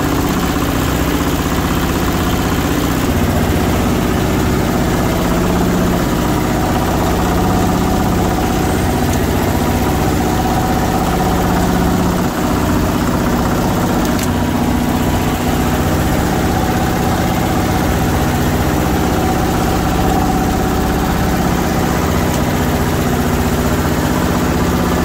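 Belt-driven cast-iron meat mincer running steadily under its motor while grinding meat: an even machine hum with no break.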